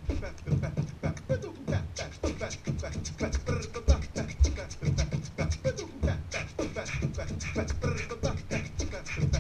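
A person beatboxing into a microphone: a steady beat of mouth-made kick, snare and hi-hat sounds, mixed with short sliding vocal tones.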